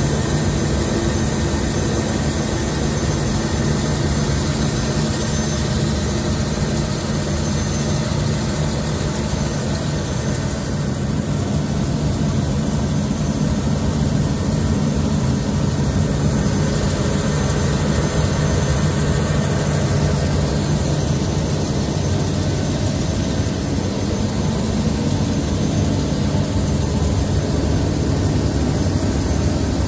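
Large gear-milling machine running steadily as its form cutter mills the tooth gaps of a module-20 gear wheel: a loud, even mechanical noise with a low hum.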